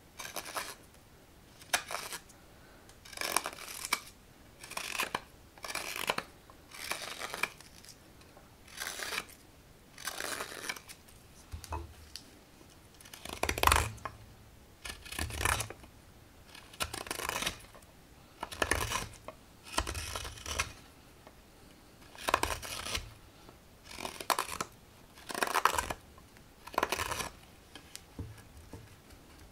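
Hook knife slicing shavings out of the bowl of a green walnut ladle: a run of about twenty short rasping cuts, one every second or so, each a brief scrape of steel through wet wood.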